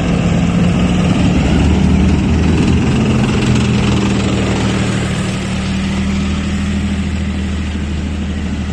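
Heavy vehicle engines running steadily as a convoy of vehicles passes, easing off slightly toward the end.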